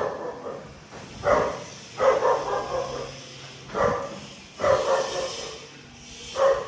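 A dog barking five times at uneven intervals, some barks trailing off longer than others.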